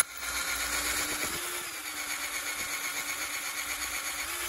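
Electric drill running steadily as a 7/32-inch bit bores out a stripped stud hole in a cast aluminum motorized-bicycle cylinder head. The hole is being enlarged to the next size so that new quarter-inch threads can be tapped into it.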